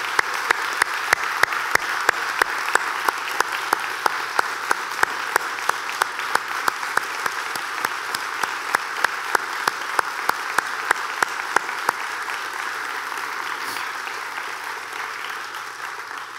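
A large congregation applauding, with sharp louder claps standing out about two or three times a second through the first twelve seconds; then the applause gradually thins and fades.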